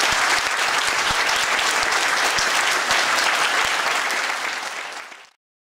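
Audience applauding: dense, steady clapping that tails off and cuts off abruptly to dead silence a little after five seconds in.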